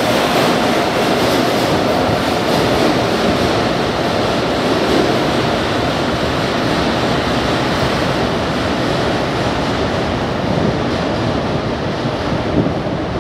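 São Paulo Metro trains running through an underground station and tunnel: a steady running noise of the trains on the rails that eases slightly near the end.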